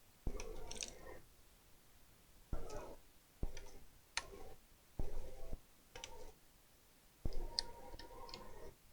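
A series of about seven sharp clicks and knocks, each trailing into a brief clatter, at irregular intervals of about one second.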